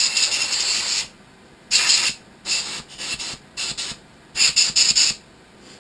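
A series of short hissing bursts: one lasting about a second at the start, then several shorter ones, bunched close together near the end.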